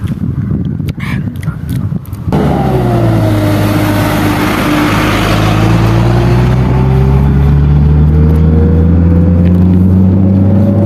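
Motor vehicle engine running, starting abruptly about two seconds in after a low rumble, with a whine that dips and then slowly rises in pitch.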